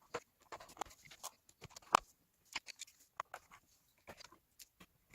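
Dell XPS 15 9550 bottom cover being fitted back onto the laptop: a scattered series of light clicks and taps as the panel is handled and seated, with one sharper click about two seconds in.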